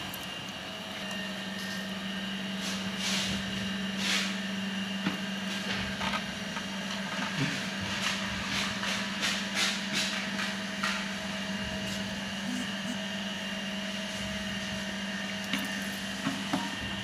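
FD-1A-50 lab freeze dryer's refrigeration unit running with a steady hum while its cold trap cools down. Over it come a series of light knocks and clicks from the clear acrylic chamber ring and the metal shelf rack being handled and seated on top, most of them in the middle, with a few more near the end.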